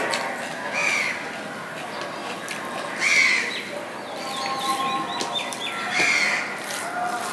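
Wet chewing and lip-smacking as a mouthful of rice and curry eaten by hand is chewed, with a bird calling several times in the background, including a short warbling run in the middle.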